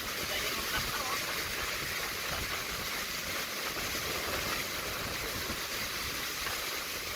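Storm surf and rushing seawater washing in close by, a steady hiss with no break.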